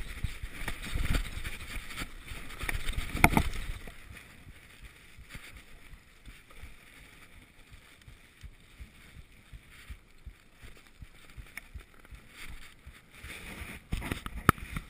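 Mountain bike rattling and bumping down a rough dirt trail, with sharp knocks, the noise dropping off about four seconds in as it rolls onto smooth tarmac; scattered clicks and knocks return near the end.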